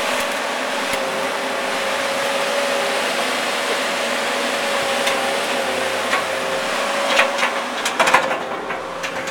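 Excavator running steadily, its engine and hydraulics giving a constant noise with a steady whine, then several sharp cracks and knocks in the last two seconds or so.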